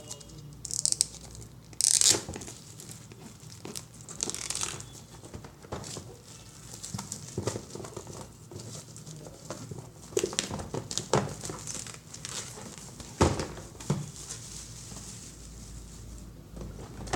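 Packaging of a D-Link router's box being opened by hand: crinkling and tearing, with scattered handling clicks and a sharp knock about thirteen seconds in.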